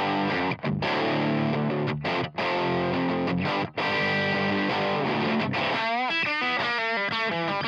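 Electric guitar through a Line 6 Helix's Brit Plexi Bright amp model with no effects engaged, giving a classic old Plexi overdriven tone. Ringing distorted chords with a few short stops, then about six seconds in a single-note lick with bends and vibrato.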